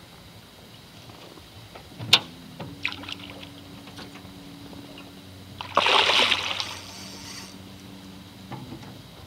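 A large hooked snook splashing at the water's surface about six seconds in, a rushing splash lasting about a second and a half. Before it, a single sharp knock about two seconds in, with a faint low steady hum underneath.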